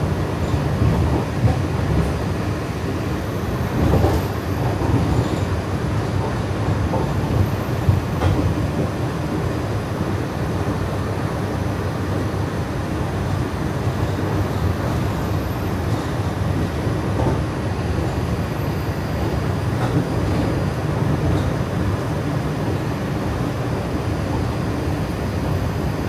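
A train running along its track: a steady low rumble with a few faint clacks.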